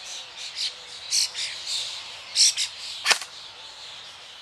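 Small birds chirping in short, high calls throughout, and about three seconds in, one sharp snap from a single shot of an SRC SR4 TC M4 airsoft electric gun fired through a chronograph.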